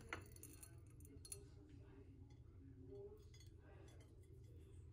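Near silence: faint low room hum, with a light click right at the start and another about a second in.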